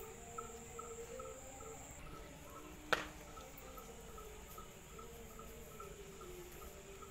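Insects chirping steadily, about three short chirps a second, with a single sharp click about three seconds in.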